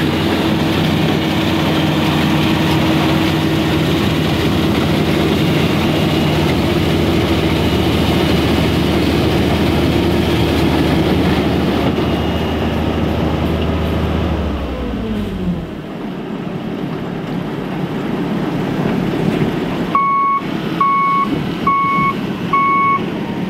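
Kubota DC-35 combine harvester's three-cylinder diesel engine and threshing gear running steadily, then winding down about two-thirds of the way through, the running note sliding down in pitch. Near the end the machine gives four short electronic beeps, about one a second.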